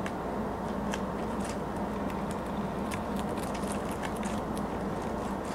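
Lop-eared rabbit crunching kale: quick, irregular crisp clicks of chewing, several a second, over a steady low hum and hiss.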